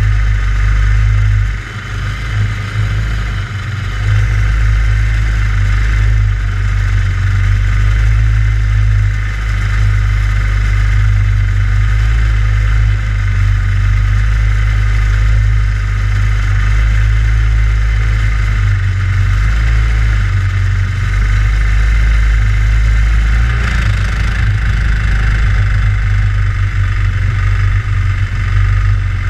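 Go-kart engine idling right under the onboard camera, steady, with a brief dip in level about a second and a half in.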